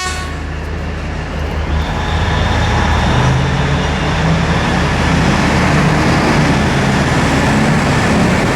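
Liebherr R9350 mining excavator's big diesel engine running steadily under load. Its note rises slightly about two to three seconds in.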